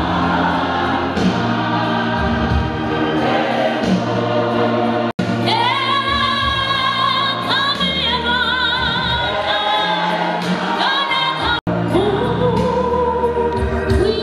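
Church choir singing gospel music, with voices holding long, wavering notes in the middle; the sound cuts out for an instant twice.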